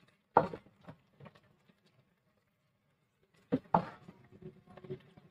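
Silicone spatula stirring and turning bone-in chicken pieces in hot oil in a pot: irregular soft knocks and shuffling, loudest about half a second in and again from about three and a half seconds.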